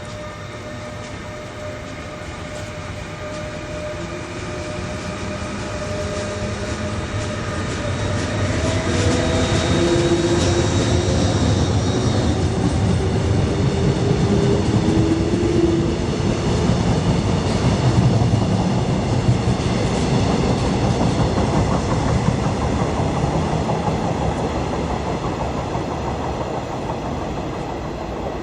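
Train passing: rumble and clatter of wheels on the rails builds to its loudest in the middle, then fades away. A steady whine runs early on, and a few brief tones bend in pitch about ten to fifteen seconds in.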